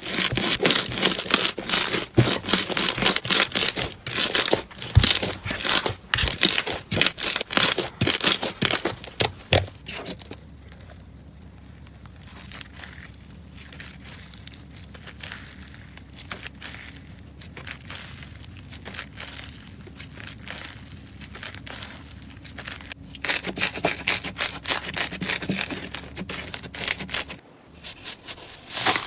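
Slime being squeezed and stretched by hand, giving dense crackling and popping. It goes softer for a long middle stretch, then gets loud again near the end.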